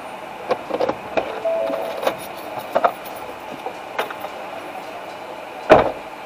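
Clicks and knocks of a vehicle door opening and someone climbing out of the cab, then one loud car door slam near the end, over a steady hum inside the cab.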